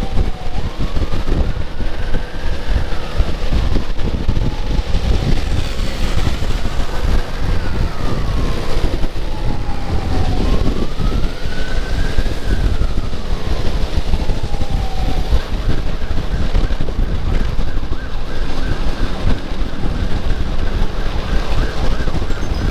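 Electronic siren sounding a slow wail, rising and falling three times, then about two-thirds of the way through switching to a rapid pulsing yelp at a higher pitch. Under it runs a loud low rumble of wind and road noise from a moving motorcycle.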